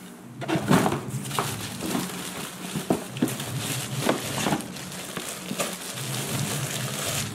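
Clear plastic bag around a new bicycle helmet being handled and pulled open: an irregular run of rustles and short crackles, with cardboard box flaps rustling.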